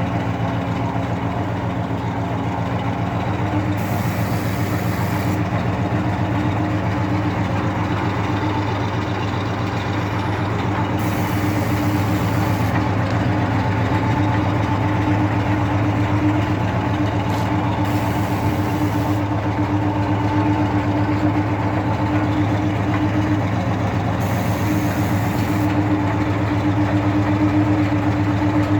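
Water-well drilling rig running loudly and steadily, its engine giving a constant low hum. Short bursts of hiss come and go several times.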